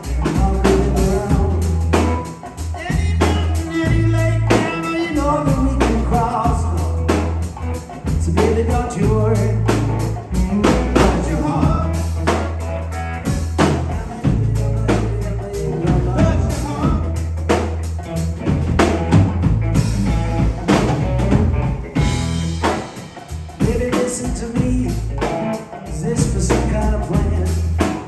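Live rock band playing a song: electric guitar, electric bass and drum kit, with a steady beat and a moving melodic line over it.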